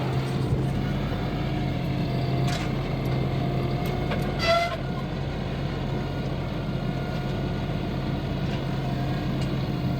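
A vehicle engine running steadily while a log is fetched and loaded onto the sawmill. A brief high-pitched tone comes about four and a half seconds in.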